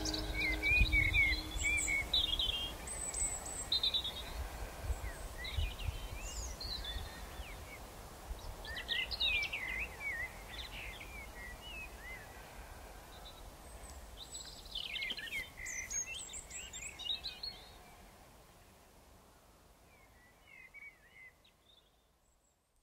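Birdsong: several birds giving short chirps and warbling phrases over a low outdoor rumble. It all fades gradually away to near silence near the end.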